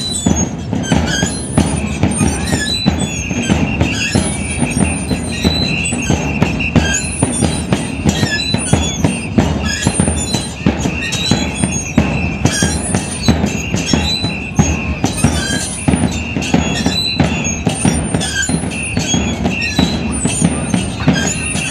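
Murga percussion: bass drums and cymbals beating a steady rhythm. Short high squeaks recur about once a second over the drumming.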